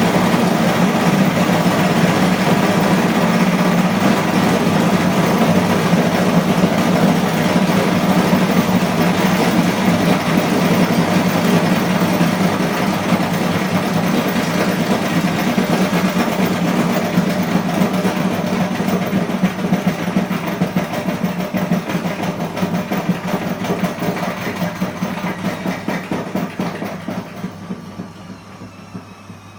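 Washing machine on its spin cycle: the drum spins fast with a steady hum and rushing noise, then winds down in the second half, the sound fading and breaking into a slowing, pulsing beat near the end.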